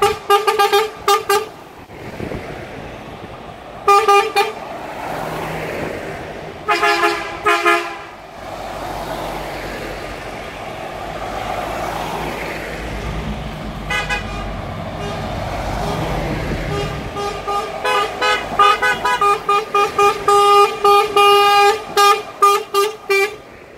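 Truck horns honking in short toots as heavy truck tractor units drive past one after another, with diesel engine and tyre rumble in between. It ends in a long run of rapid toots over the last six seconds.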